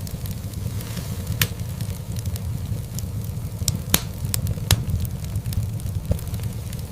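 Wood fire in a fireplace crackling: a steady low rumble of burning logs with scattered sharp pops and snaps, the loudest coming a little past the middle.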